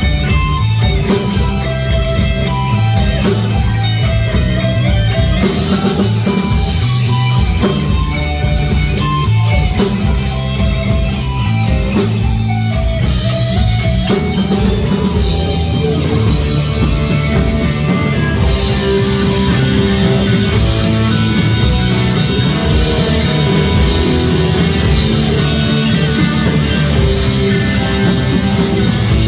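Heavy metal music with electric guitars and a drum kit, playing continuously; the melodic line and texture change about halfway through.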